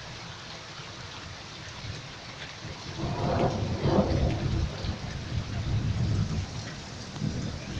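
Heavy rain falling steadily, then about three seconds in a loud clap of thunder that rolls on as a low rumble for several seconds.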